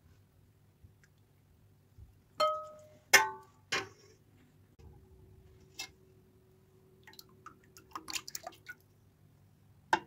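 Kitchenware clinking: three sharp clinks about two to four seconds in, the first two ringing briefly, then a scatter of lighter taps and clicks near the end.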